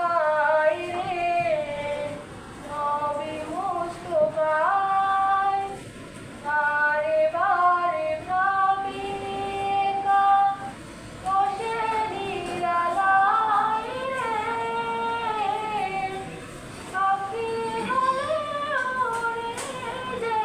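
A female voice singing a naat, an Islamic devotional song in praise of the Prophet, solo and without instruments, with some long held notes.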